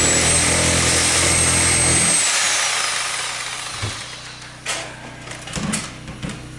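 Handheld power tool cutting into a wall, running steadily with a high motor whine, then switched off about two seconds in and winding down. A few separate knocks and scrapes follow as material is worked loose.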